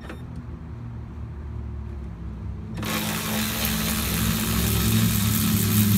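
Handheld cordless power tool running on a brake caliper bracket bolt to undo it, a low steady hum at first, turning suddenly into a much louder, harsher noise about three seconds in.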